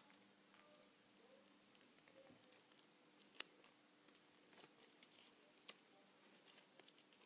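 Faint crinkling, tearing and small sharp clicks of packaging being handled as a Lightning cable is pulled free of its glued wrapping.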